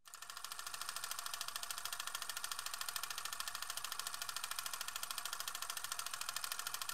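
A steady, fast-pulsing hiss that fades in right after a sudden cut to silence and runs evenly on, carried by the channel's subscribe end card.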